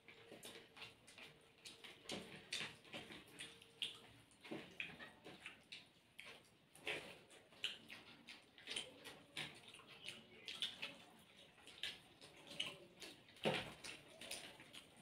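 Two people eating rice with chicken curry by hand: wet squelching of fingers mixing rice and gravy on the plates, with chewing and lip smacks, as many short irregular clicks and smacks.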